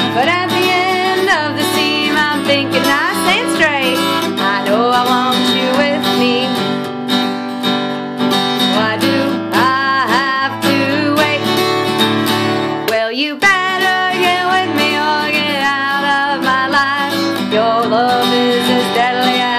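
A folk song on acoustic guitar: steady strumming with a woman's voice singing over it, the melody sliding up and down, with a brief break about thirteen seconds in.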